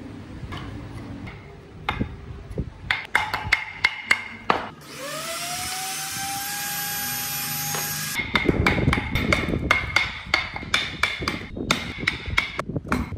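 Wooden pieces knocking and clicking as they are handled, then a small power tool's motor spinning up, rising in pitch and running steadily for about three seconds before it cuts off. After that comes a quick run of sharp knocks as a wood chisel cuts chips from a wooden block.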